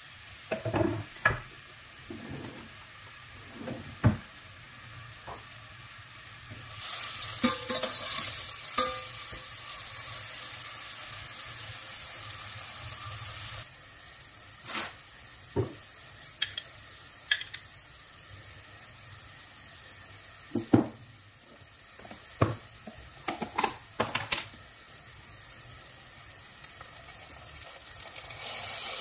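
Chopped onion frying in oil in a stainless steel pot, sizzling, loudest from about seven to fourteen seconds in, while a utensil clinks and knocks against the pot as it is stirred.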